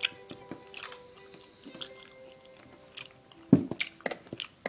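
Soft background music from a tablet learning app, with held tones, under scattered light clicks and taps. A louder thump comes about three and a half seconds in.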